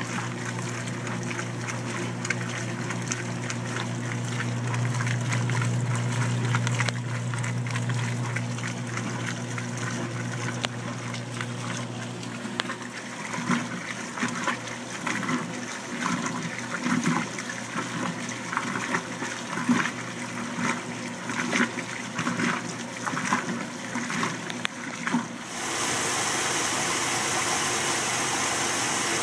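Top-loading washing machines filling with water as they agitate: first a steady motor hum under pouring water, then churning water sloshing in surges about once a second. Near the end it cuts abruptly to a steady, even rush of water pouring into the tub.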